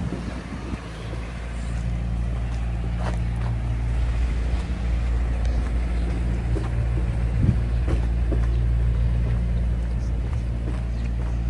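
A motor vehicle's engine running steadily at idle, a low even hum, with a few faint clicks and knocks over it.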